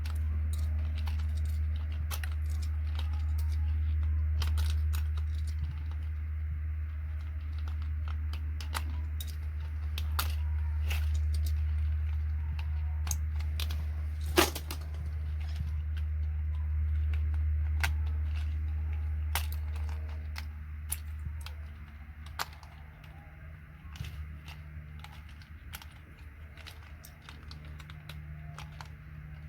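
Plastic keycaps being pried off a vintage keyboard, giving irregular sharp clicks and snaps, with one louder snap about halfway through. Under them runs a steady low hum that weakens about two-thirds of the way through.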